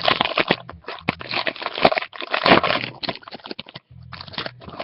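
Foil wrapper of a Topps Platinum football card pack being torn open and crinkled, a run of irregular crackly rustles.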